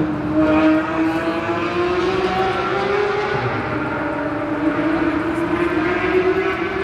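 Sports car engine running at fairly steady revs, its pitch drifting slowly up and down.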